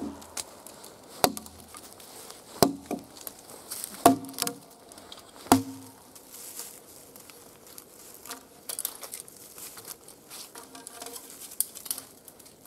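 Axe blows chopping into the end grain of a conifer log, five sharp strikes about a second and a half apart. After that come only fainter rustling and crackling sounds.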